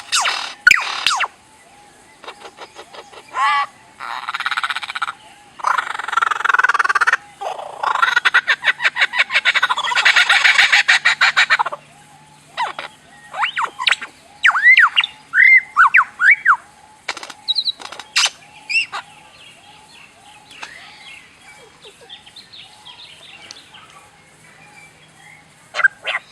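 A bird calling in a varied string of sounds: harsh, rapid rattling bursts in the first half, then a run of short arching whistled chirps, then softer chatter.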